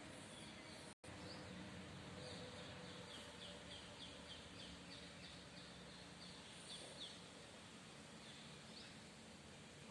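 Faint bird chirps over a steady outdoor background hiss: a quick run of short, downward-sliding notes, about four a second, starting a couple of seconds in, and a few more chirps later. The sound drops out for an instant about a second in.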